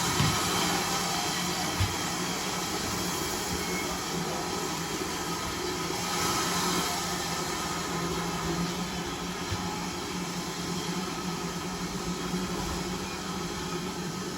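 GWR 5600 class 0-6-2 tank engine, a steam locomotive, hissing steadily with a low hum under it and a single knock about two seconds in, the sound easing slowly toward the end.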